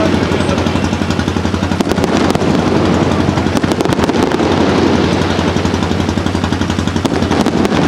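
Fireworks display going off: a dense, continuous crackle of many small pops a second from crackling shells and fountains, over a steady low rumble.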